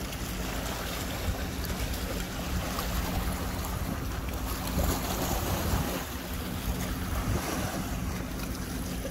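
Wind buffeting the microphone over small waves lapping against a rock riprap shoreline and a concrete boat ramp, with a faint steady low hum underneath.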